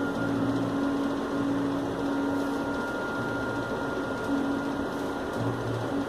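A steady mechanical hum with a few held tones over a noisy drone, the lowest tone coming and going every second or so.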